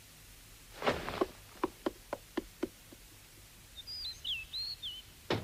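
Light footsteps on wooden floorboards, a quick run of about seven steps, followed by a few short bird chirps and a single knock near the end.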